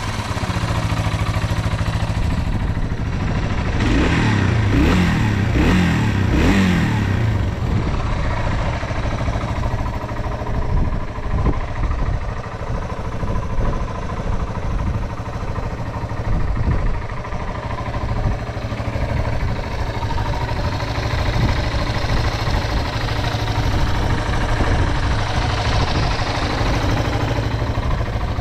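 Yamaha TW225's single-cylinder four-stroke engine idling, with a few quick throttle blips about four to seven seconds in, then settling back to a steady idle. It runs with no abnormal noises.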